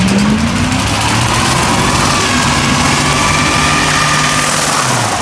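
Chevrolet pickup's engine held at high revs during a burnout, its rear tires spinning and squealing on the asphalt. The engine lets off near the end.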